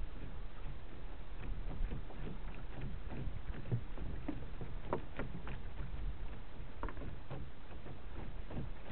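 Small waves lapping and slapping irregularly against the hull of a Sunfish sailboat under way, a few slaps louder than the rest, over a steady low rumble of wind on the microphone.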